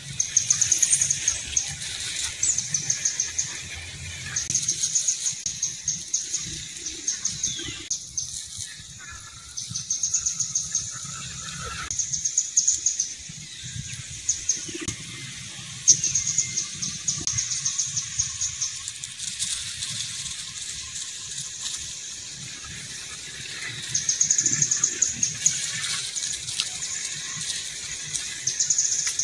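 High-pitched rapid trilling calls of wildlife, each trill a second or two long, repeating every few seconds, over a low rumble.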